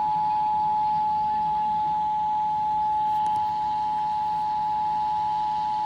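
Emergency Alert System attention signal: a steady two-tone alarm of 853 Hz and 960 Hz sounding together at a constant level, the tone that marks the start of an EAS alert, here a Required Monthly Test.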